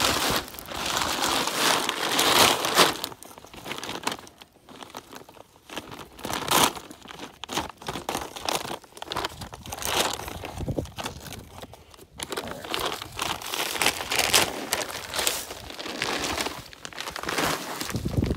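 Paper sack of wildlife corn crinkling as it is handled and opened, in irregular bursts, with rustling of dry leaves underfoot.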